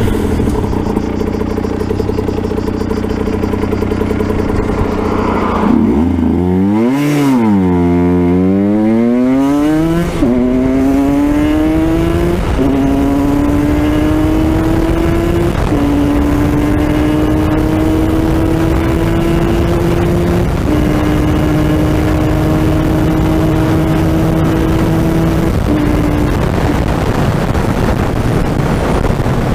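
Aprilia RS 125's two-stroke single-cylinder engine under full-throttle acceleration: after a few seconds on a steady note, the revs climb hard, then rise steadily in each gear with a sudden drop in pitch at each of four upshifts. Near the end the engine note falls away as the throttle closes.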